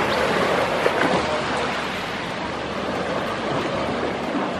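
Small sea waves washing and lapping steadily onto a sandy shore.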